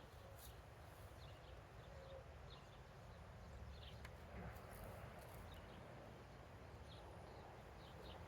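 Near silence: faint outdoor ambience with scattered, faint short chirps.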